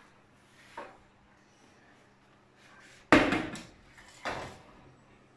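Metal baking tray, its rolls covered by a glass dish, knocking as it is handled and pushed into the oven: a faint knock about a second in, a loud clatter about three seconds in that rings briefly, and another knock a second later.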